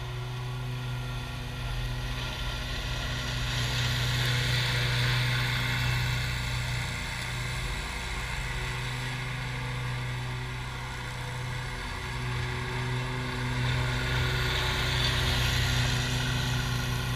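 Toro commercial zero-turn mower engines running steadily at mowing throttle, with the rush of the cutting deck's blades. The sound swells twice as a mower passes close.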